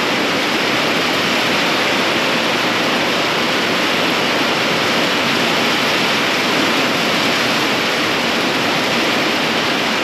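Heavy rain pouring down, a loud, steady hiss that holds even throughout.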